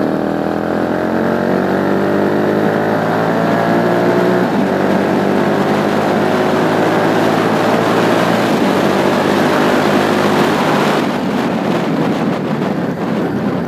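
Motorcycle engine running through a newly fitted, mild-toned exhaust as the bike rides along. The pitch climbs steadily under acceleration and steps at gear changes about four and a half and eight and a half seconds in. Near the end the engine note sinks under wind and road noise.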